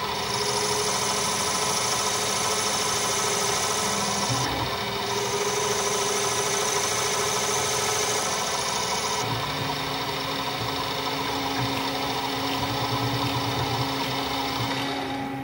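Small metal lathe running, its carbide-insert tool facing a 1/8-scale model brake drum: a steady machine hum made of several even tones over a high cutting hiss, whose character shifts a little a few times as the cut goes on.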